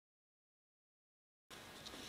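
Dead digital silence, then faint even room hiss that switches on abruptly about one and a half seconds in.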